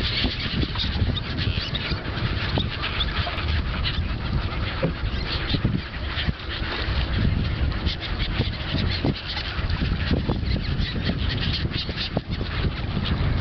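A large flock of gulls calling, many short harsh cries overlapping without a break as the birds lift off and circle over the water, over a steady low rumble.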